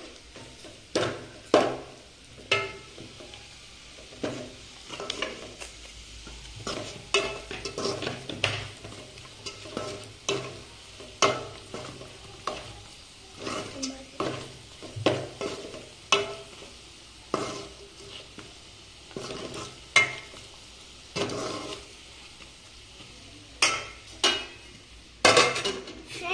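A spoon scraping and knocking against a metal pan as chicken fry is stirred, with irregular strikes about once a second over a steady frying sizzle; a few louder clatters near the end.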